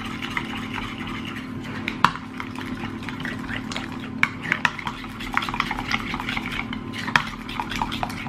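A spoon stirring a thick crème fraîche and mustard mixture in a bowl, with scattered clicks of the spoon against the bowl that come more often in the second half.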